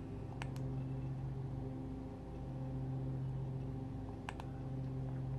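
Steady low hum in the room, with two quick double clicks: one about half a second in and one about four seconds in, from handling the iPhone.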